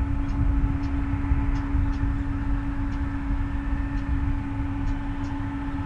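Boeing 777-200's twin jet engines at idle thrust while the airliner taxis close by: a steady low hum with a few higher steady tones over a low rumble, not rising.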